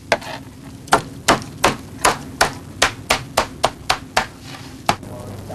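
Blade chopping a pile of earthworms on a board: a dozen or so sharp chops at about three a second, stopping shortly before the end.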